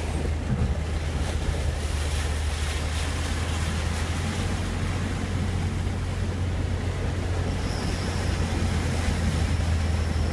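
Vehicle engine drone and tyre noise heard from inside the cab while driving through a shallow, rocky creek, with water washing under the wheels.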